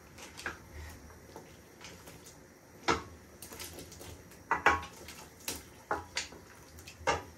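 A cooking pot and utensils knocking and clinking about half a dozen times as seafood and cassava are added to a pot of boiling vegetables. The loudest knocks come about three and four and a half seconds in.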